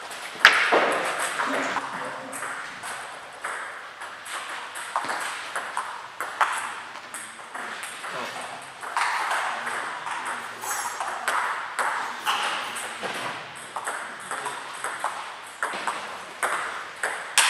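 Table tennis balls clicking off bats and tables, many short hits throughout from rallies at several tables, with a sharp loud hit about half a second in.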